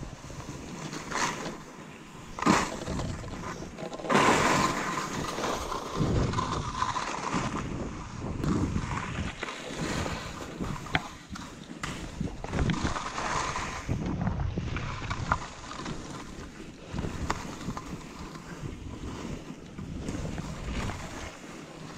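Skis running through deep powder snow, the hiss of snow and wind on the microphone rising and falling in irregular surges, with a few sharp clicks along the way.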